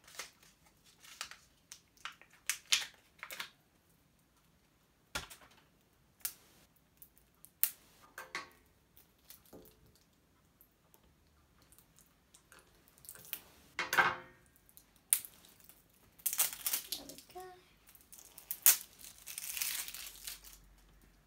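Plastic wrapping crinkling and tearing, with scissors snipping, as the seal is cut off a small slime tub; the noises come in short, irregular bursts with scattered clicks of the plastic tub being handled.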